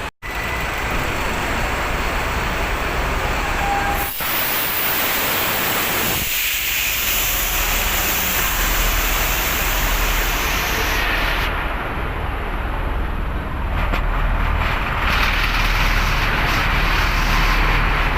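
Strong wind rushing and buffeting the microphone, a loud steady roar with a deep rumble underneath, probably with waves mixed in. The sound changes abruptly a few times.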